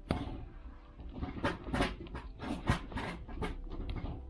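Honda S2000 gear lever with a heavy aftermarket knob being handled and moved, giving a series of sharp clicks and knocks over a low rumble.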